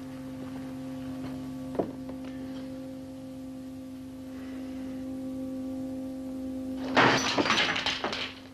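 Film score holding one long, low sustained note with overtones, with a single sharp click about two seconds in. About seven seconds in, a loud, noisy burst of several rapid knocks cuts across it for about a second and a half.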